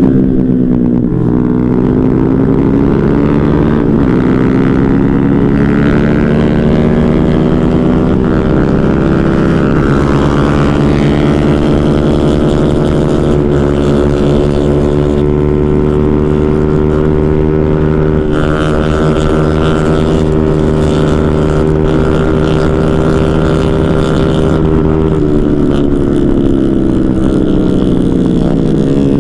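Motorcycle engine running hard at high revs under sustained throttle, its pitch holding mostly steady with a slow climb. The pitch dips and rises again in the first two seconds and falls away near the end, with a low rumble of wind on the microphone underneath.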